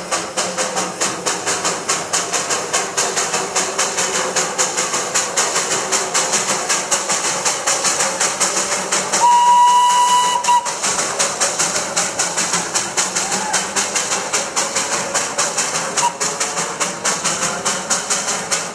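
Darjeeling Himalayan Railway B-class narrow-gauge steam locomotive working a freight train, its exhaust chuffing in quick, even beats. About nine seconds in it gives one short, steady steam whistle blast of about a second and a half.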